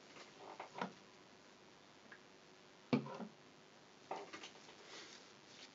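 Faint handling sounds of toilet paper being torn off and readied: a few soft rustles and one sharp click about three seconds in.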